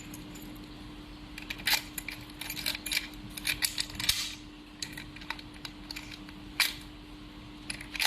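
Key working a newly installed sliding door lock: a series of sharp metallic clicks from the cylinder and latch mechanism, the loudest about six and a half seconds in, over a faint steady hum.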